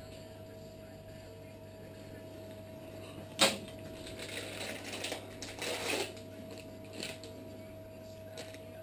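Steel dental instruments clinking and rattling as they are taken from the tray: a sharp click about three and a half seconds in, then about two seconds of irregular clinks, and another short click near seven seconds. A steady electrical hum runs underneath.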